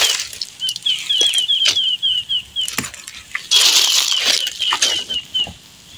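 Pandan leaves deep-frying in a pan of oil over a wood fire, sizzling and crackling. A louder burst of sizzle comes at the start and again about three and a half seconds in, against quick, high chirping, several chirps a second.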